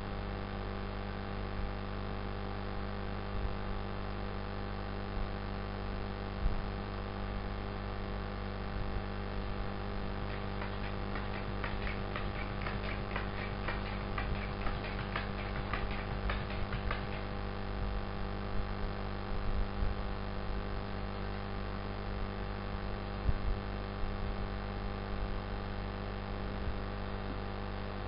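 Steady electrical mains hum, with a run of quick clicks from a computer keyboard and mouse between about ten and seventeen seconds in.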